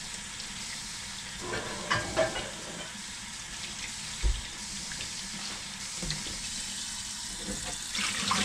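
Kitchen tap running in a steady hiss, with a pot clattering about two seconds in and a dull thump a couple of seconds later.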